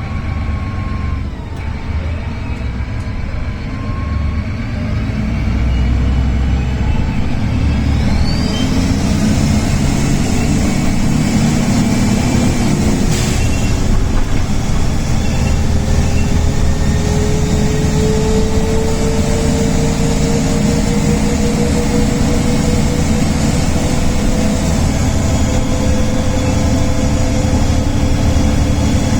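VDL DB250 bus's diesel engine running under load. From about eight seconds in, the turbocharger whistle rises over the engine, with a tone that climbs slowly in pitch as the bus gathers speed.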